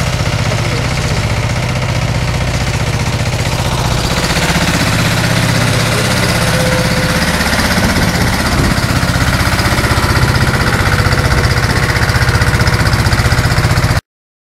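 Pasquali tractor's engine running steadily with a fast, even chugging as it pulls a trailer of corn along the road. The sound cuts off suddenly near the end.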